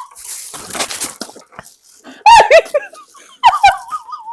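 Several people laughing and shrieking in reaction to the taste of a cocktail onion, with two loud, high, wavering squeals about two and three and a half seconds in.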